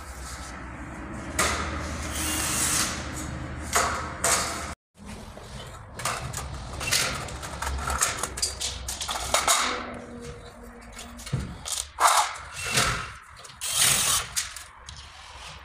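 Cordless drill running for a few seconds, driving screws into galvanised steel drywall studs. After a sudden break, metal studs click, scrape and knock as they are handled and pushed into the floor track.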